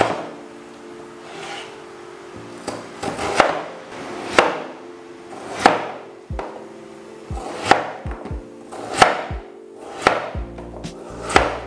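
Chef's knife dicing peeled raw potatoes on a cutting board: irregular strokes about once a second, each a short slicing sound through the potato that ends in a knock of the blade on the board.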